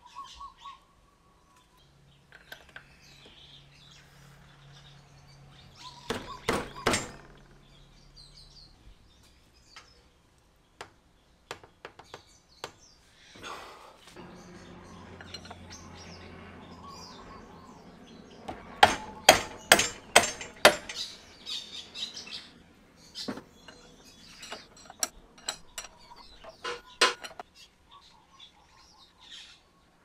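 A rubber mallet striking a 24mm wrench to break loose the rear axle nut of a Yamaha Vino 125 scooter: a few sharp knocks about six seconds in, then a longer run of them from about nineteen seconds. Birds chirp faintly in the background.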